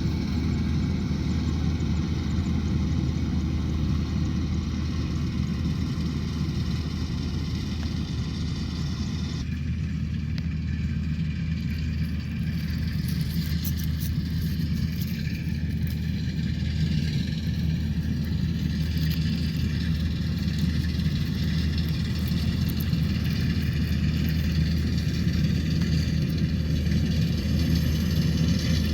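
Combine harvester engine running steadily, with the mix of engine and machinery sound changing abruptly about a third of the way in.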